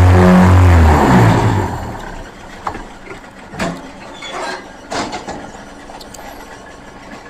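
Pumice concrete block press machine: a loud, pulsing low motor hum winds down with falling pitch about a second in. After it, quieter mechanical clanks and a few short hisses follow as the machine works.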